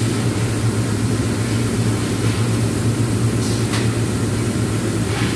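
Steady low electrical hum over constant machinery noise from a submerged arc welding setup, with a couple of faint clicks.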